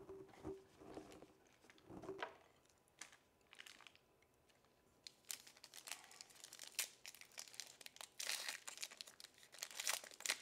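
Foil wrapper of a baseball card pack crinkling as it is handled and torn open: a few soft handling sounds at first, then a run of sharp crackles from about halfway in, loudest near the end.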